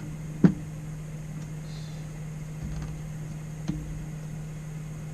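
A sharp knock about half a second in and a few light clicks, from handling a computer monitor and its mount, over a steady low hum.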